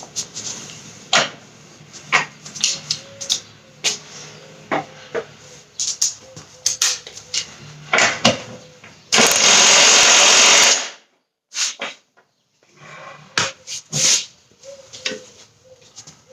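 Scattered clanks and knocks of tools on metal during front suspension disassembly, with one loud burst of about two seconds from a power tool, an impact wrench, about nine seconds in.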